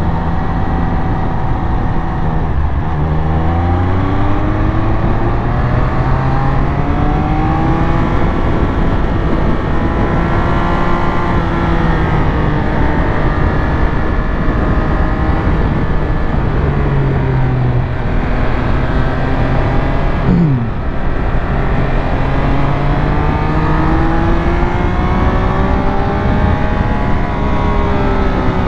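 Triumph Speed Triple 1200 RS inline three-cylinder engine under way, its note rising and falling repeatedly as the rider opens and closes the throttle through the bends, over steady wind rush. About twenty seconds in the engine note drops sharply for a moment.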